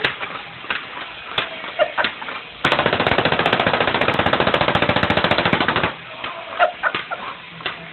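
Battery-powered crawling toy soldier firing its electronic machine-gun sound effect: a rapid, tinny rattle lasting about three seconds, starting a little before the middle. Scattered single clicks and pops come before and after the rattle.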